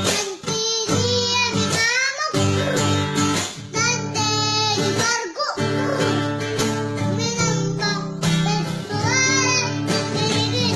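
A song: a child's voice singing a melody over a steady instrumental backing.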